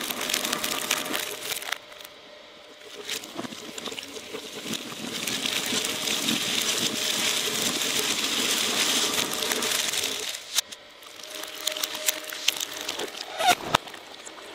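Twin-shaft shredder's cutter discs crunching and crackling through objects fed into it: a short burst at the start, a long dense crackle in the middle as a bundle of drinking straws is chewed up, then scattered sharp snaps near the end.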